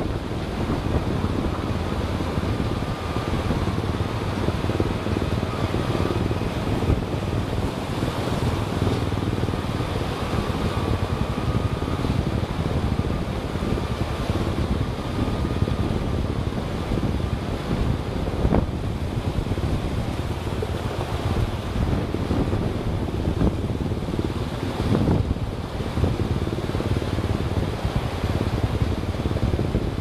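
A vehicle driving on a rough mountain road, with steady road and wind noise on the microphone. A faint steady whine runs through the first half, and there are two knocks in the second half.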